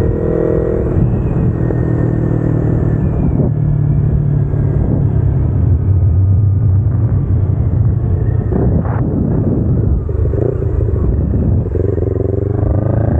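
Kawasaki Ninja 250R's parallel-twin engine, with aftermarket headers and exhaust, running under way. The revs are high at first, settle to a lower steady note through the middle, and climb again near the end.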